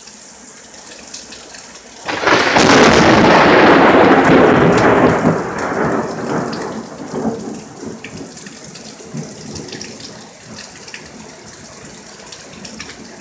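A loud clap of thunder about two seconds in: it starts suddenly, rolls on loudly for about three seconds, then rumbles away over several more, the higher tones fading first. Steady rain falls throughout.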